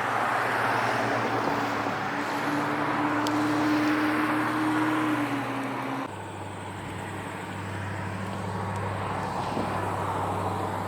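Floatplane's propeller engine running steadily, with a held tone that dips slightly about five seconds in. About six seconds in the sound changes abruptly to a quieter, lower steady hum.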